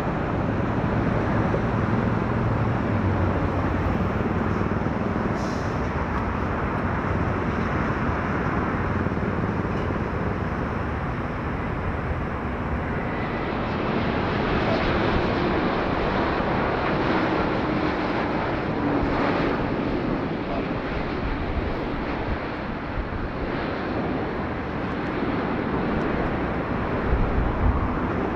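Jet airliner engines on landing approach: a steady rumble, with a faint engine tone that falls slightly about halfway through as a Boeing 787 passes close by.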